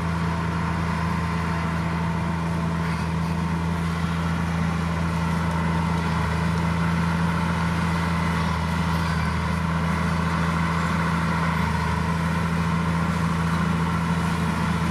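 Heavy diesel engine of earthmoving machinery running steadily at constant speed, a deep even drone with no revving.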